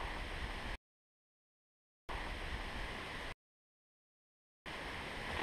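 Faint steady outdoor background hiss with no distinct event, cut off twice by dead silence about a second and a quarter long each, like audio dropouts or edits.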